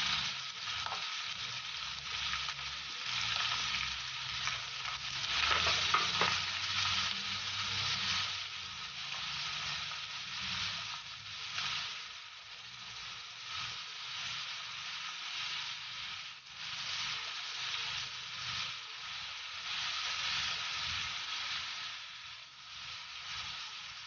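Shredded cabbage, carrot and sliced ham sizzling in a hot wok as they are stirred and tossed with a spatula: a steady frying hiss with repeated scraping and rustling of the vegetables.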